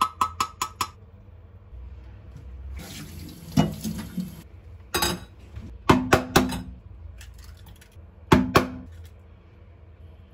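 Kitchen dishes and utensils clinking, starting with a quick run of ringing taps. About three seconds in a tap runs briefly, and after it come several knocks of dishes and utensils being handled and set down.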